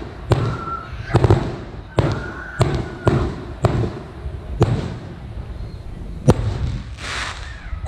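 Aerial firework shells bursting overhead: a string of sharp booms at irregular intervals, roughly one a second, the loudest about six seconds in.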